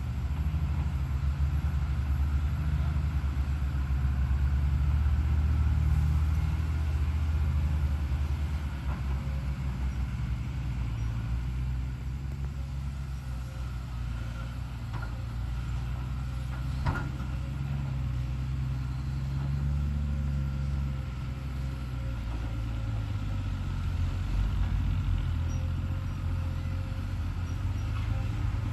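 Hyundai HX210HD excavator's diesel engine running under changing load as it works soil, with a steady high whine over the engine. There is one sharp knock about two-thirds of the way through.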